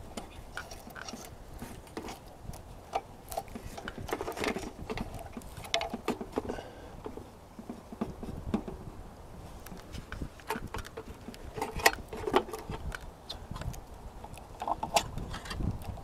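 Irregular small clicks, taps and rustling of hands handling wire and the metal fixture of an old mercury vapor yard light close up, with a few sharper ticks scattered through.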